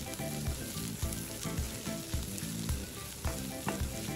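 Chopped onions with crushed ginger and garlic sizzling in hot oil in a nonstick wok, stirred with a plastic spatula that scrapes and taps the pan several times a second.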